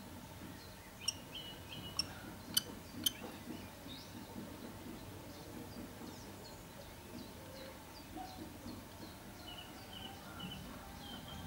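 Faint high bird chirps over a low background noise, with four sharp taps between about one and three seconds in.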